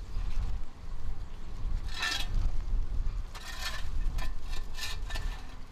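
Wood chips and bark being swept and scooped up with a long-handled plastic dustpan on a concrete floor: a handful of short scraping strokes, the first about two seconds in.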